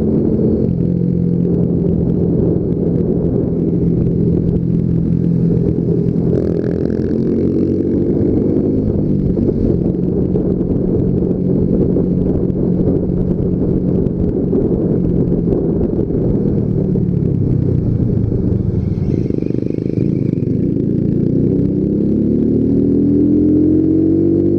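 Yamaha Factor 150's single-cylinder four-stroke engine heard from the rider's seat, pulling at steady revs with wind rumble on the microphone. The engine note shifts a couple of times as the revs change, then climbs steadily near the end as the bike accelerates.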